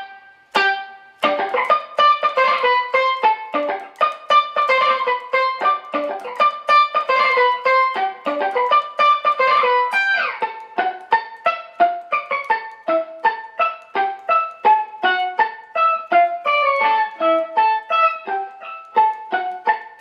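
Electric guitar played through an octave-up Whammy pitch shifter mixed with the dry signal, overdrive and plate reverb, giving a steel-drum-like tone. A quick melodic string of short staccato, palm-muted notes, each cut short so the reverb fills the decay. The line moves lower about halfway through.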